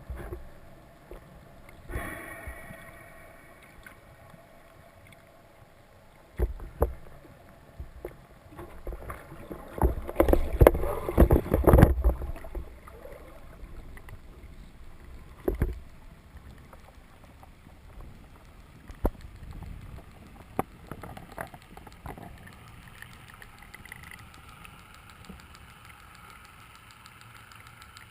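Muffled underwater noise from a diving spearfisherman's camera, with scattered knocks and clicks. The loudest is a dense run of knocks about ten to twelve seconds in, with single knocks a few seconds before and after it.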